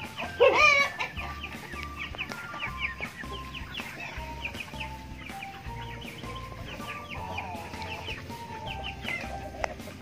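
Young free-range chickens crowding around feed being poured for them: a constant stream of short, high, falling peeps, with one loud squawk about half a second in.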